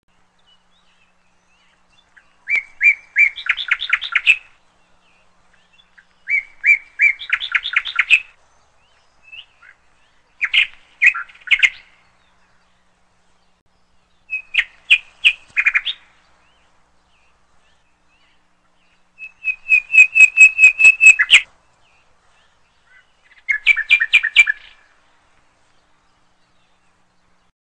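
A songbird singing six short phrases, one every four seconds or so; each phrase is a quick run of repeated chirps that ends in a fast trill.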